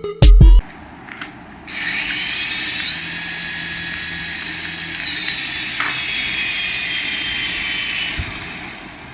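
A small electric motor of a remote-control toy whining: it spins up with a rising pitch about two seconds in, runs steadily, dips slightly in pitch about five seconds in, and fades out near the end.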